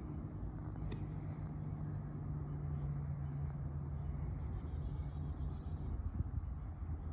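Outdoor ambience: a steady low hum, with a bird trilling briefly about four to six seconds in and a faint click about a second in.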